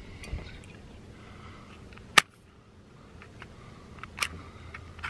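A wet wooden match handled and struck against the striker strip on the side of a matchbox: a sharp click about two seconds in, and a short scrape-like click just after four seconds as the match head is drawn across the striker.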